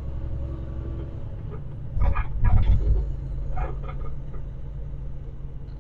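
Semi-truck engine running steadily, heard from inside the cab as the truck drives slowly. About two seconds in comes a louder low rumble with a few short knocks lasting about a second.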